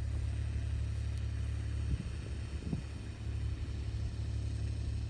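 Steady low rumble that starts and stops abruptly, with two faint short sounds about two seconds in.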